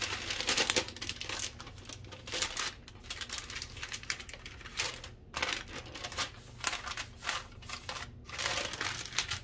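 Parchment paper crinkling and rustling in a series of short, uneven bursts as soft compound butter is pushed and shaped into a log on it, loudest in the first second.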